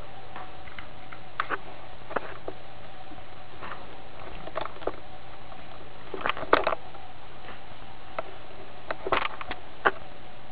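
Scattered light clicks and taps of a Godaikin Bio Man die-cast toy robot being handled, its parts knocking together, over a steady background hiss.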